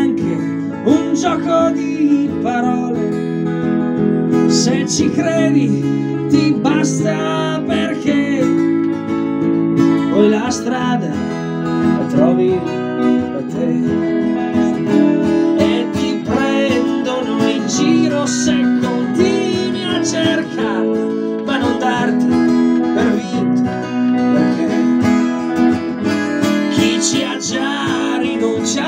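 Live guitar music: an acoustic guitar strumming chords while an electric guitar plays wavering lead lines over it.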